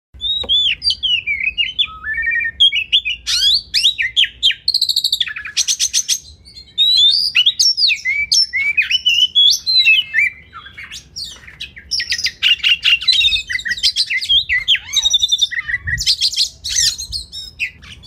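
Oriental magpie-robin (kacer) singing a long, varied song of whistled notes that slide up and down, broken by fast buzzy rattles. There is a brief pause about six seconds in.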